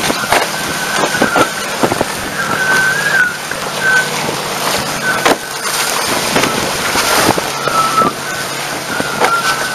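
Water rushing and slapping against the hulls of an A-Class catamaran sailing fast, with wind buffeting the boat-mounted camera and frequent splashes of spray. A thin, high whistling tone wavers and breaks in and out over it.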